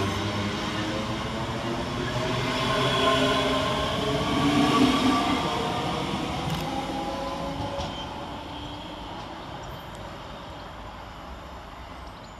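Hitachi Class 385 electric multiple unit pulling away from a station platform, its traction motors whining in several tones that rise in pitch as it accelerates over a rumble of wheels on rail. The sound is loudest about four to five seconds in, then fades as the train draws away.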